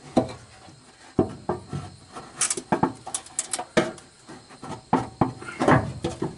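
Irregular knocks, clunks and high metallic clinks as the valve cover is worked loose and lifted off the old Chevy engine, with tools and metal parts knocking together. A quick run of bright metal clinks comes about two and a half to three and a half seconds in.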